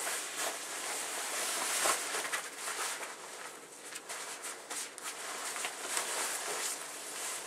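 Rustling of a Marmot Aegis rain jacket's nylon shell as it is swung on and its sleeves pulled on over a down puffy jacket, in quick irregular swishes and crinkles.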